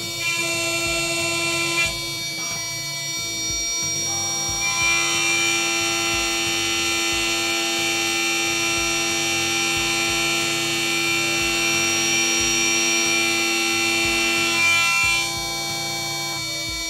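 6040 CNC router spindle running at speed while a small end mill cuts passes in an aluminium block, giving a steady whine with several shrill held tones. The sound changes abruptly about 2 s and 4 s in and again near the end, and is loudest and shrillest through the middle.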